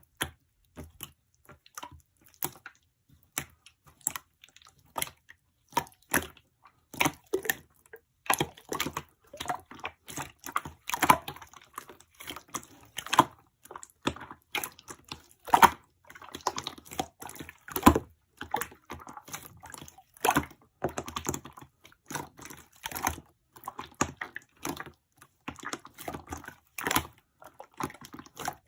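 An irregular run of small wet clicks and squishes, a few each second, growing busier after the first several seconds.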